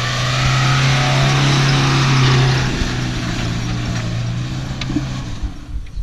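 Off-road 4x4's engine running hard at a steady pitch with tyre and track noise. It grows louder to a peak about two seconds in, then eases off and stops about five seconds in.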